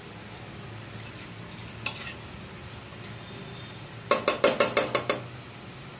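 A spoon stirring rice, vegetables and water in a pressure cooker, knocking against the metal pot: one clink about two seconds in, then a quick run of about eight clinks near the end.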